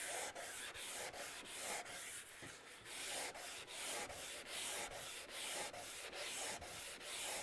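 Hand sanding block with sandpaper rubbed back and forth over a rosewood fretboard, flattening inlaid synthetic-stone fret marker dots flush with the wood: a steady scratchy hiss in quick, even strokes, about three a second.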